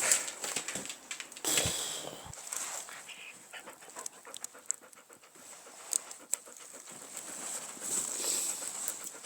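A dog panting in several short breathy bursts, with scattered light clicks between them.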